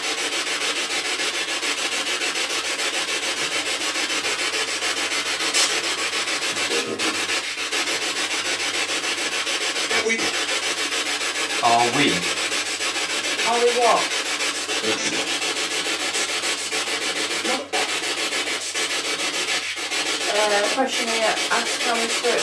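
Spirit box radio sweeping through stations: a steady, loud rush of static, with short chopped fragments of voice breaking through a few times, around the middle and near the end.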